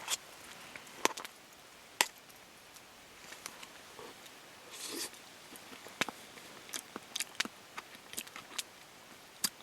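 Eating from a small cook pot: a utensil clicking and scraping against the pot in scattered light taps, a handful over several seconds, with soft rustling between.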